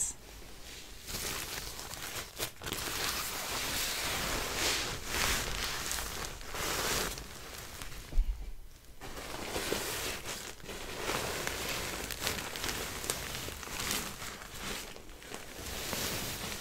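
Plastic-backed disposable diaper and plastic pants crinkling and rustling as they are handled and rubbed, with a short sharp click and a brief lull a little past halfway.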